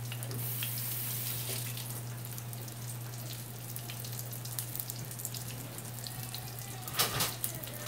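Breaded chicken pieces frying in shallow oil in a pan: a steady sizzle full of small crackles over a low steady hum, with a louder burst of noise near the end as metal tongs grip a piece to turn it.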